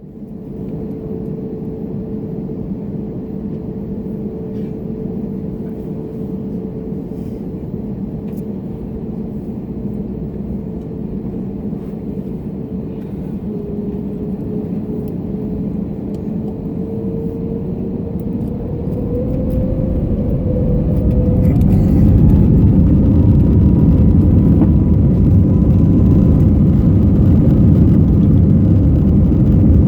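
Airbus A321neo's CFM LEAP-1A turbofans heard from the cabin, first running steadily at low thrust with a steady whine over a rumble, then, about two-thirds of the way in, spooling up to takeoff thrust: the whine rises in pitch and the rumble grows louder and stays there.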